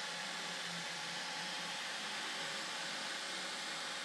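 Steady rushing fan noise with a faint low hum underneath.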